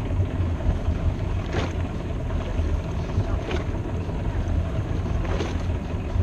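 Cobalt boat's engine idling with a steady low rumble, while water laps against the hull about every two seconds.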